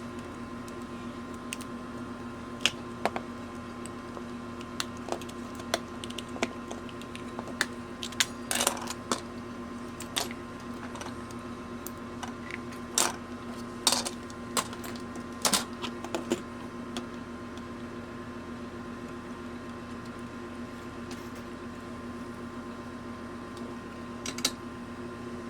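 Irregular light clicks and taps of small plastic parts and tools being handled on a workbench, busiest in the first two-thirds and dying away near the end, over a steady electrical hum of a few held tones.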